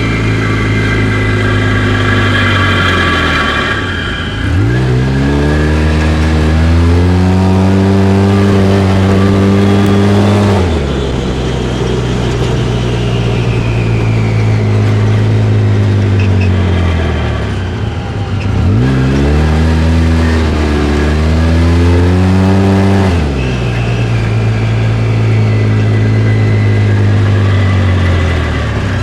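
Polaris RZR side-by-side's engine revving up and dropping back three times. On each deceleration a whooshing, grinding noise comes in, which the owner is trying to trace.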